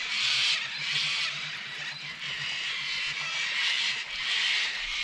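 Baitcasting reel being cranked to retrieve a lure, its gears whirring in uneven spurts with short pauses between turns.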